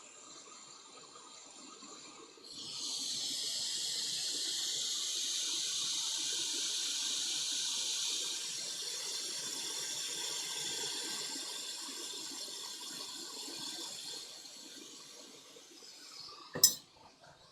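Hot air rework station blowing: a steady hiss of air that starts about two and a half seconds in and slowly dies away over the following seconds. A sharp click comes near the end.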